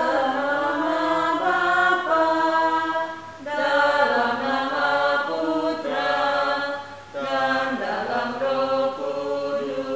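A slow, chant-like hymn sung in long held notes, in three phrases with short breaks about three and a half and seven seconds in.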